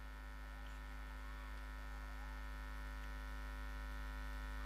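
Steady electrical mains hum with a buzz of many even overtones, from the commentary microphone's sound system, heard in a gap in the commentary.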